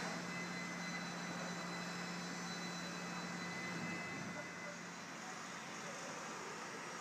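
Steady machinery noise from a construction site, with a low engine hum that fades out about four seconds in.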